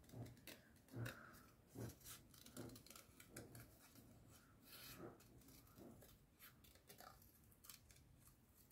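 Small craft scissors snipping through card, cutting freehand around a stamped greeting. It is a faint, steady run of short snips, a little under one a second, thinning out near the end.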